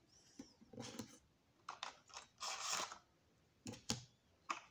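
Small cardboard trading-card box being handled and opened by hand: a few short, scattered rustles and scrapes of card and packaging.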